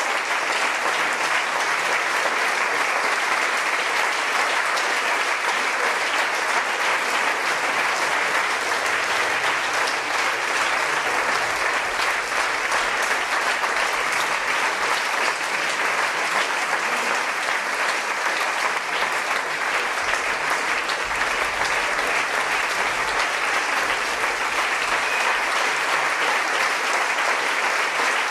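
Audience applauding: steady, dense clapping from a full house.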